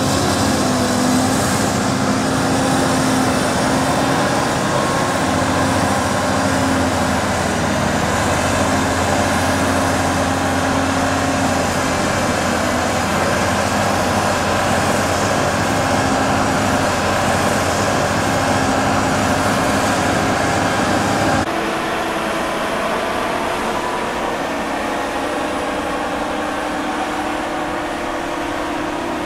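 Large diesel engines of heavy machinery running steadily under load as they push and compact chopped maize on a silage clamp. About two-thirds through, the sound changes abruptly to a slightly quieter, different engine note.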